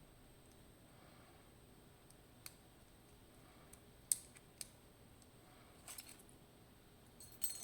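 Scattered sharp metallic clicks and taps as a Dierre New Power lock cylinder is taken apart by hand, its small metal parts knocking against each other and against tools. The loudest click comes about four seconds in, with a short cluster near the end.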